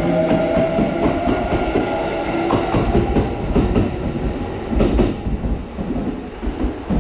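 Kintetsu limited express electric train pulling away, its last cars rolling past with wheels clattering over the rail joints and a motor whine. The rumble fades after about five seconds as the train clears the platform.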